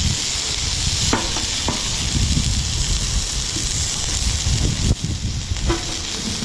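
Flank steak and fried potatoes sizzling on a hot Camp Chef FTG600 flat-top griddle: a steady frying hiss with a low rumble underneath.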